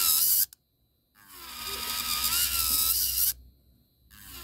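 Electric nail drill grinding lifted acrylic off a fingernail in spells: a short one at the start, about two seconds from about a second in, and another near the end. Its pitch wavers as the bit bears on the nail.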